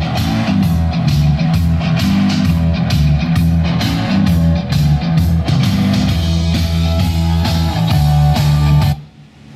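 Rock music with electric guitar, bass and a drum kit playing from the car stereo. It cuts off suddenly about nine seconds in.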